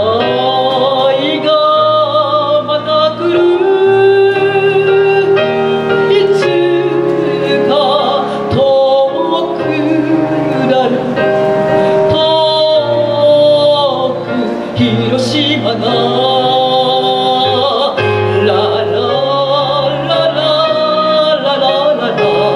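Female chanson singer singing into a microphone, long held notes with vibrato, over instrumental accompaniment.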